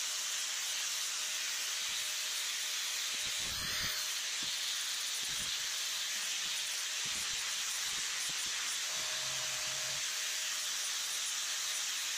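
Angle grinder with an abrasive disc grinding a small steel bracket clamped in a vise, running steadily under load as a continuous high hiss.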